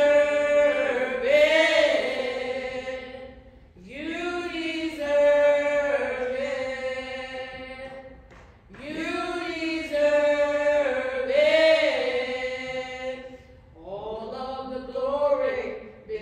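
Unaccompanied singing, chant-like: the same slow sung phrase about four seconds long, repeated three times, then a shorter phrase near the end.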